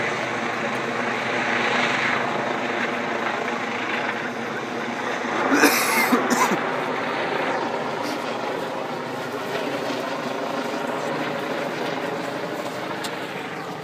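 Helicopter flying overhead, its rotor and engine a steady drone, with a brief loud burst of noise about halfway through.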